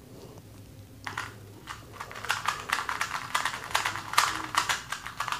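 A MoYu Meilong 2x2 speed cube turned rapidly by hand: fast, irregular plastic clicking of its layers. The clicking starts about a second in and grows denser from about two seconds in.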